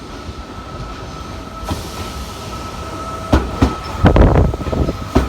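A steady mechanical rumble with a held high tone, joined in the second half by a run of loud clunks and rattles, cutting off abruptly near the end.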